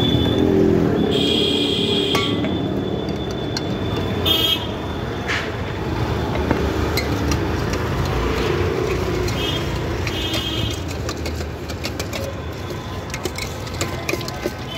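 Street traffic noise with several short vehicle horn toots. Near the end, a steel spoon clicks and scrapes rapidly against a steel bowl as bhel puri is mixed.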